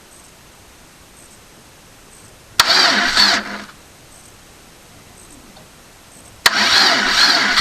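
VAZ 2111 16-valve engine being cranked by its starter without catching: a click and about a second of cranking some two and a half seconds in, then another click near the end and cranking again with an even pulse. The battery is running flat.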